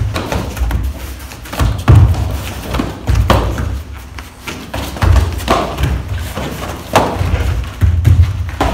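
Karate punches and kicks landing on gloves, pads and bodies, heard as repeated dull thuds at irregular intervals.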